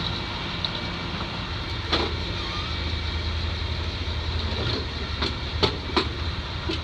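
Boom truck's engine running steadily, with a low hum throughout. Several sharp knocks stand out over it, one about two seconds in and a few close together near the end.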